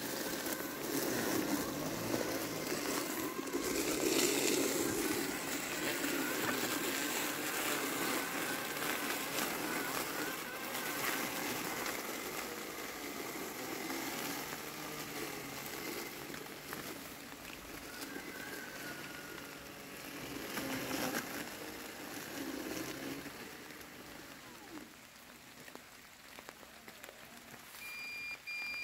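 Landxcape LX790 robotic lawn mower running, its motor and blade cutting through tall wet weeds with a rushing sound that swells and fades, under a steady hiss of rain. Near the end a short row of electronic beeps sounds.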